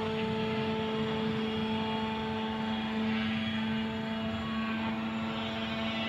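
Two-post car lift lowering a car, its motor and hydraulics giving a steady droning hum with a held whine.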